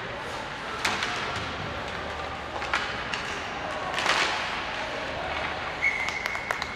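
Ice hockey play in an arena: sharp knocks of sticks and puck, three of them, the loudest about four seconds in with ringing after it, over steady rink noise. A short steady high tone starts near the end.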